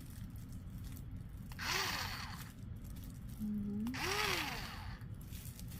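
Shein plastic mailer package being torn open: two short raspy ripping sounds about two seconds apart, over a steady low hum.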